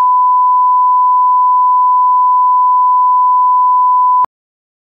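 Steady 1 kHz line-up tone, a single pure beep-like note accompanying a countdown clock, cutting off abruptly about four seconds in.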